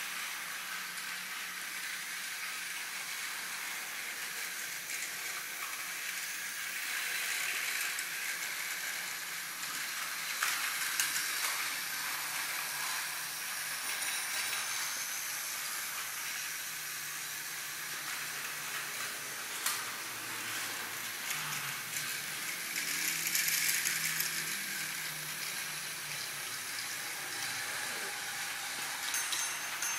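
Steam locomotive letting off steam in a steady hiss, with a faint low hum beneath and louder swells now and then.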